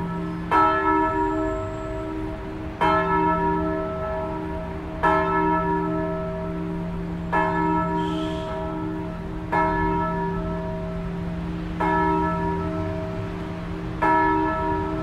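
Swinging church bells ringing in full peal, struck by their clappers in a steady rhythm of seven strokes about two and a quarter seconds apart. Each stroke rings on with a long, many-toned hum that carries into the next.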